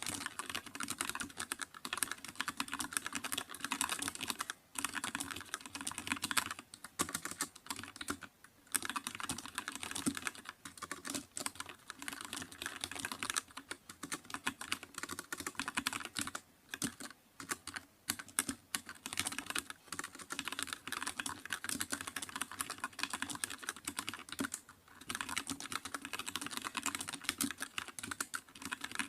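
Continuous typing on a computer keyboard: a dense run of keystrokes clicking, with a few short pauses.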